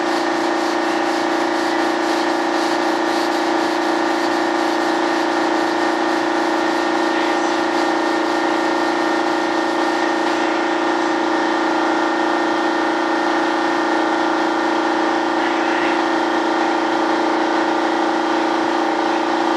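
Steady machine whine and hum, one constant pitch with overtones, running unchanged, with faint rubbing on fibreglass.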